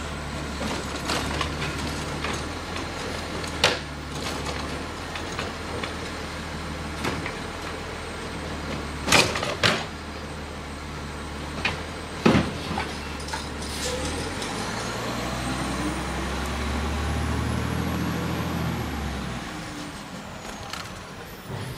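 Automated side-loader garbage truck's diesel engine running while its lift arm dumps a yard-waste cart, with several sharp bangs of the cart against the truck. Later the engine revs up for about five seconds, then drops back.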